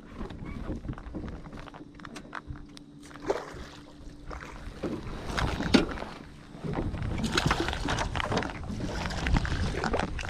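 Water sloshing and splashing beside a small boat, with scattered clicks and knocks, a steady low hum through the first half, and louder splashing in the second half.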